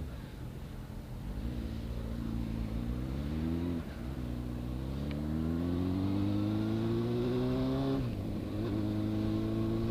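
Motorcycle engine pulling away and accelerating through the gears: its pitch climbs, drops at an upshift about four seconds in, climbs again, and drops at a second shift about eight seconds in, then holds steady.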